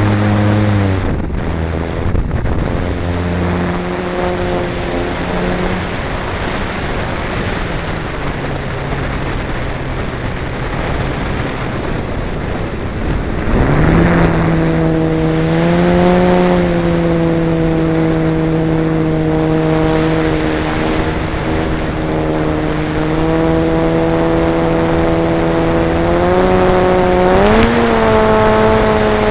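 Electric motor and propeller of a ParkZone Stinson Reliant RC plane in flight, heard from a camera mounted on the plane, with heavy wind rush over the microphone. The motor's whine drops in pitch about a second in and again around eight seconds as the throttle is eased, climbs back up around fourteen seconds in, and rises once more near the end.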